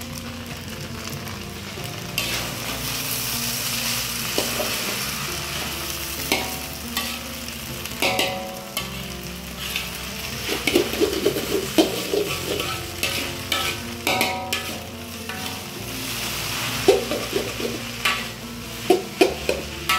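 Food sizzling as it fries in a pan, the sizzle picking up about two seconds in. A cooking utensil stirs and scrapes against the pan, with clusters of clanks around the middle and again near the end.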